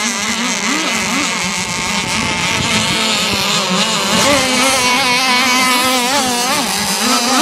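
Two-stroke gas engines of radio-controlled offshore racing boats running at high revs on the water, the pitch wavering up and down as the throttle changes through the turns.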